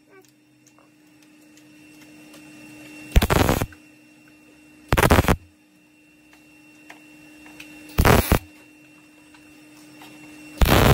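MIG welder arc crackling in four short bursts of about half a second each, a few seconds apart: stitch or tack welds laid along a sheet-metal rust-repair patch seam. A steady hum sounds between the bursts.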